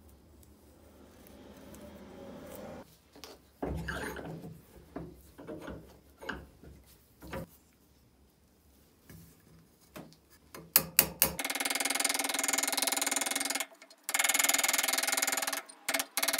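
Knocks and rubbing as a wooden block is clamped in a bench vise. A few sharp taps follow, then from about two-thirds in a loud, fast, continuous run of hammer taps on the thin perforated steel grater drum fitted over the block, beating its bent drum back into round. The run stops briefly twice.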